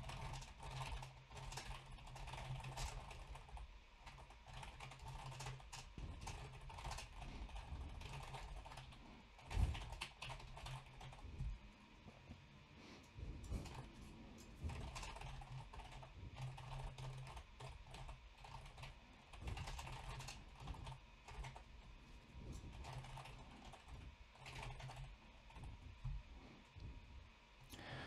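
Computer keyboard typing, faint: irregular runs of keystrokes with short pauses, and one louder knock about ten seconds in.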